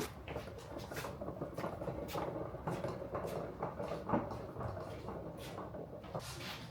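Irregular light knocks, clicks and rubbing over a low hum, with one louder knock about four seconds in.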